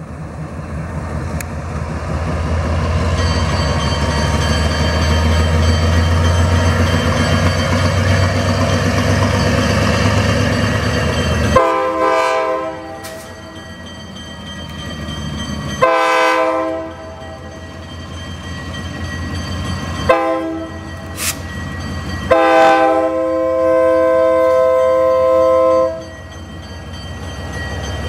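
Alco RS-2 diesel locomotive's Alco 244 engine running as it approaches. Its air horn then sounds the grade-crossing signal in a chord of several tones: long, long, short, then a final long blast.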